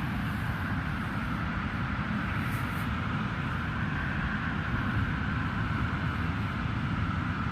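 Steady rumble of a passing motor vehicle, a higher hum within it sinking slowly in pitch.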